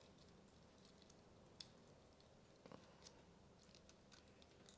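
Near silence, with a handful of faint, sharp clicks from small parts being handled as a wire end is fitted into a rotary encoder's terminal housing.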